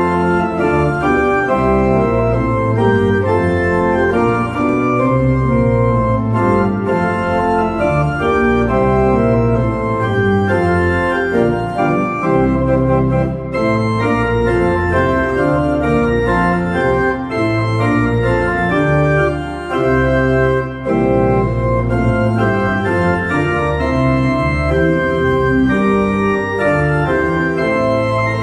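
Church pipe organ playing the closing voluntary: full sustained chords that move on every second or so, over deep bass notes.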